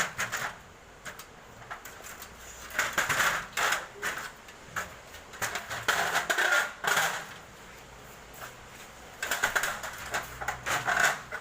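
Irregular clicks and clattering knocks of hands-on installation work, coming in clusters a few seconds apart with quieter gaps between.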